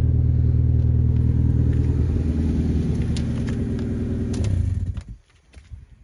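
Mazda MX-5 Miata mk2's four-cylinder engine idling steadily, then switched off with the key and dying away about five seconds in.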